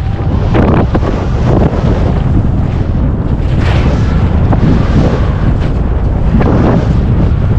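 Heavy wind buffeting the microphone of a body-worn action camera as a skier runs fast down powder, with surges of hissing snow spray as the skis turn, about four times.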